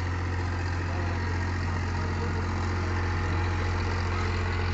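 Boat engine idling, a steady, unchanging low hum.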